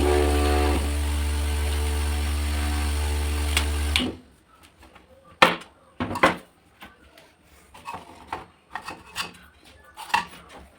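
Homemade table fan driven by a 12-volt 775 DC motor, running with a steady hum and whine and the rush of its blades, then cutting off about four seconds in. A few clicks and knocks follow.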